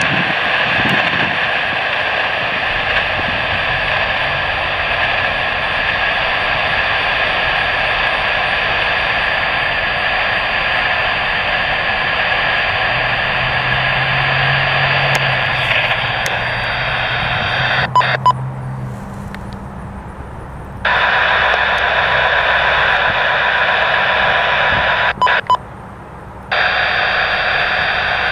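Scanner radio static: a steady open-channel hiss that cuts off with a click about 18 seconds in, returns a few seconds later, and cuts out briefly again near the end.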